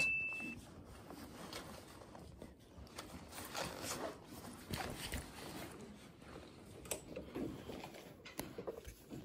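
A ringing music note dies away at the start, then faint, irregular rustling and scraping of a handheld phone and clothing being moved against the microphone.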